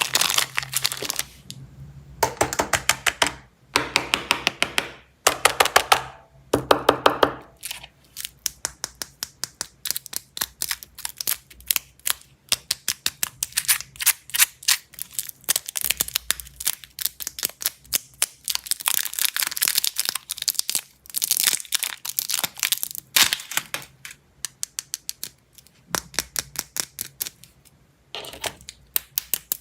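Candy and its plastic wrappers being handled, crackling and clicking in rapid runs that come in bursts with short pauses between them.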